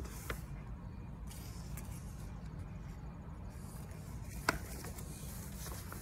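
Steady low outdoor background rumble with a few soft clicks and rustles of a hardcover picture book being handled, the sharpest about four and a half seconds in, as a page is turned.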